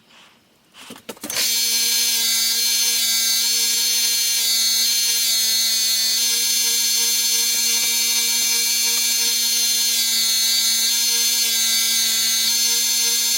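Electric sharpening grinder motor starting up about a second and a half in and then running at a steady whine while a knife edge is touched up.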